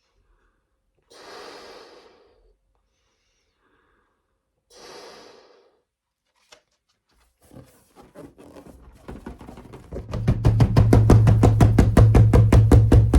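Two breaths blown into a foil balloon, then the balloon deflating: air escaping through its neck starts as a rattle about eight seconds in and builds into a loud, rapid fluttering buzz with a low hum, loudest near the end.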